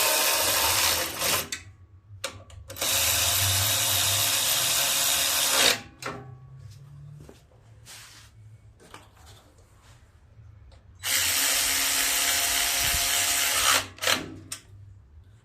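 Power drill with a socket running in three steady bursts of a few seconds each, driving in the bolts that hold a Briggs & Stratton engine's shroud on, with small clicks and knocks in the pauses between.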